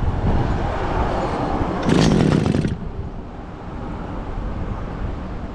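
Small two-stroke engine of a Kawasaki TF22 engine pump running, just started after a carburettor clean-out. About two seconds in it revs up briefly, then drops back to a lower, quieter idle.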